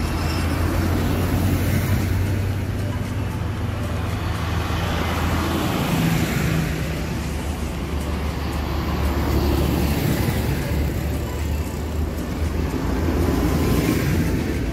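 Large diesel farm tractors driving past one after another: a red Massey Ferguson, a green John Deere and a blue New Holland. There is a steady low engine hum with tyre noise, swelling each time another tractor passes, about every four seconds.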